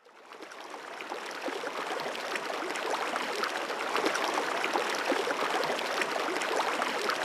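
Running stream water gurgling and trickling, full of small bubbling clicks, fading in from silence over the first two seconds and then holding steady.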